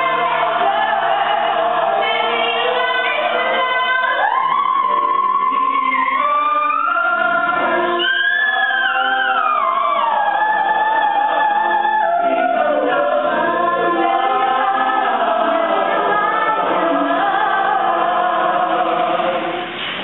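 Live musical-theatre singing: a female soloist belts a soaring melodic line over the ensemble's choral singing, with a high gliding run about eight to ten seconds in.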